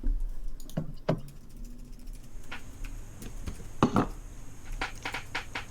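Scattered sharp clicks and taps, about a dozen at uneven gaps, the strongest about four seconds in, over a low steady hum.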